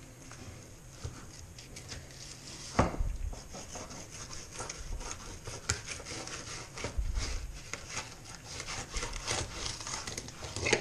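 A knife scraping and cutting through a zander on a cutting board, with many small clicks and scrapes. Two sharper knocks on the board come about three seconds in and near the end.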